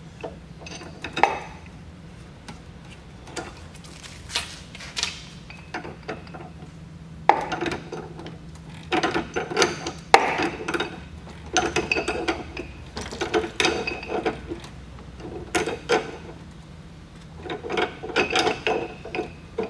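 Pipe wrench working on a brass flare fitting of a flexible gas connector: irregular bursts of metal clicks and scrapes as the wrench is swung and its jaw reset to tighten the joint. A faint low hum runs underneath.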